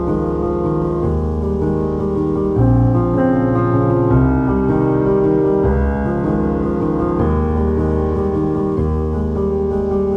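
Background piano music playing slow, sustained chords.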